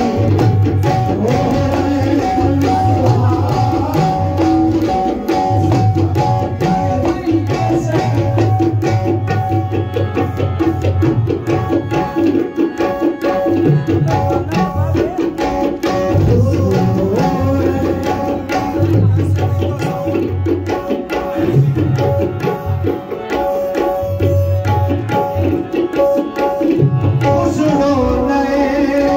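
Qawwali ensemble playing a driving rhythmic passage: tabla strokes and deep drum hits over the steady held notes of a harmonium.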